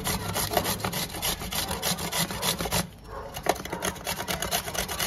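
Sweet pumpkin being grated on the coarse side of a stainless-steel box grater: quick repeated rasping strokes, several a second, softer after about three seconds.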